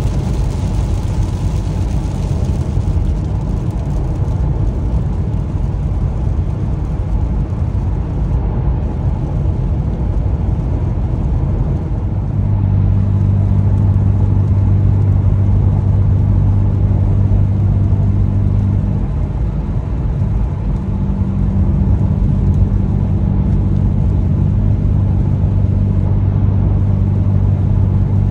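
Cadillac ATS-V's twin-turbo V6, heard from inside the cabin at steady highway speed. At first it is mostly a steady hum of road, wind and tyre noise with the modified muffler valves closed. About twelve seconds in, with the valves open, a steady low exhaust drone comes in from the catless downpipes and deleted X-pipe; it fades briefly in the middle, then returns.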